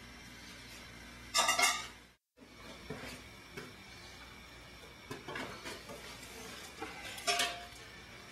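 Metal clinks and rattles of arc-welding gear being handled: the electrode holder, rod and cables. There is a clatter a little over a second in, scattered small clicks, and another clatter near the end.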